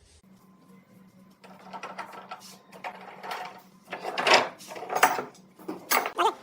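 Wood being worked by hand in separate scraping strokes over a faint steady hum, quiet for the first second or so and loudest from about four seconds in.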